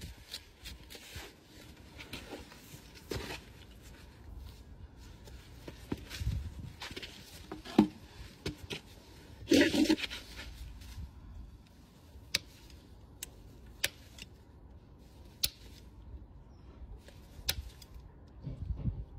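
Handling and tool noise as a farrier works on a Shire horse's rear hoof set on a metal hoof stand: scattered sharp clicks and soft scrapes, with a single loud knock about eight seconds in and a louder scraping burst shortly after.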